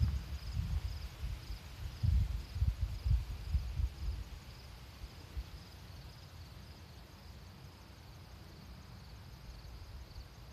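Wind buffeting the microphone in gusts through the first half, then easing off. Under it, insects chirp in a high, even pulse of about two chirps a second.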